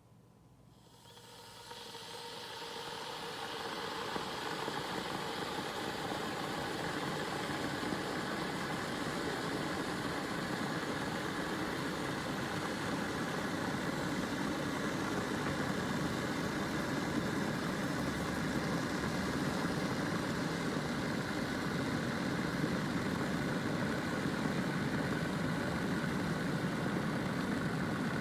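Electric kettle heating water: a hiss and rumble that starts about a second in, builds over the next few seconds, then holds steady.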